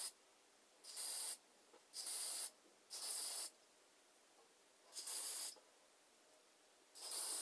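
Aerosol can of extra hold hairspray sprayed in short hissing bursts of about half a second each, six in all, with pauses of a second or so between them.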